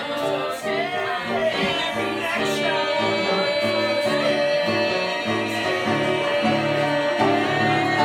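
Live singing over instrumental accompaniment, with chords changing in a steady rhythm.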